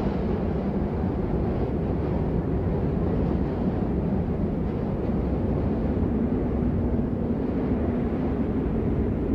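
Steady low rumbling ambience noise, even and unbroken, with no music over it.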